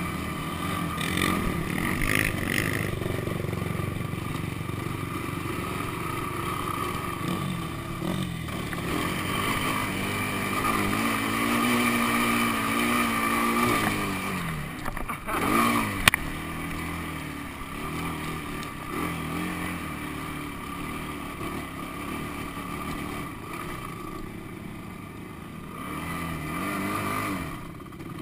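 Honda sport quad's engine revving up and down as it is ridden over sand, the pitch rising and falling with the throttle. A single sharp knock sounds about 16 seconds in.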